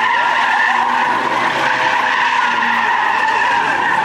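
Car tyres squealing continuously as a car is spun hard, likely in a burnout or donut, with the engine's pitch wavering up and down underneath.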